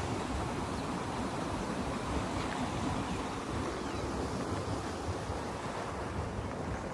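Wind buffeting the phone's microphone: a steady rushing noise with a low rumble.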